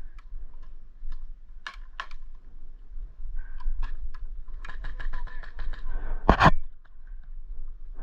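Airsoft guns firing: scattered single clicking shots, then a quick string of shots about five seconds in. A loud knock follows soon after.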